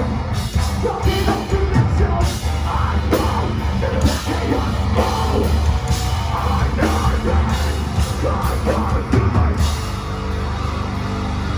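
Metalcore band playing live: heavy distorted guitars, bass and drums with shouted vocals over the top.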